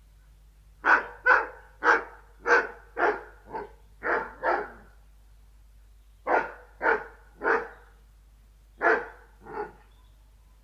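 Deerhound barking: a run of about eight deep barks roughly half a second apart, then three more, then two.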